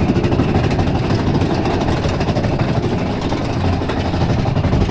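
Mine-train roller coaster running along its track: a steady, loud rumble of the train on the rails, mixed with wind buffeting the microphone.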